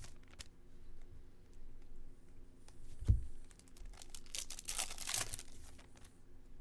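Foil trading-card pack wrapper being torn and crinkled while cards are handled, in rustling bursts that are strongest over a second-long stretch past the middle. A single low thump comes about three seconds in.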